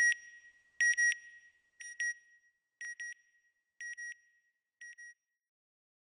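Electronic beeping sound effect: a clear high double beep repeated about once a second, six times, each pair fainter than the last as it dies away.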